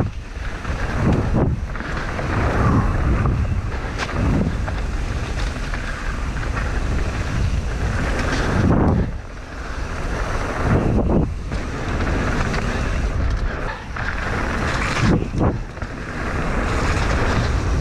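Wind buffeting the microphone of a mountain biker's camera during a fast descent, over the rumble of knobby tyres rolling on a packed-dirt trail. The rush rises and dips a few times as the speed changes over the trail's rollers and berms.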